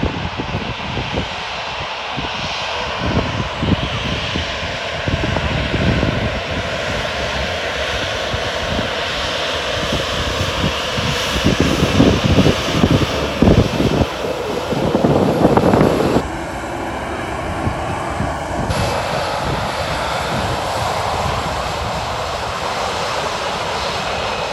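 Boeing 737-800's CFM56-7B jet engines running at taxi power as the airliner rolls past: a steady whine and rush. Irregular low rumbles come and go and are loudest about halfway through.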